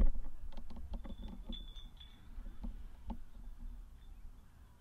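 Handling noise from a hand-held camcorder being moved: a sharp knock at the start, then small scattered clicks over a low rumble that fades. A brief high thin tone sounds about a second and a half in.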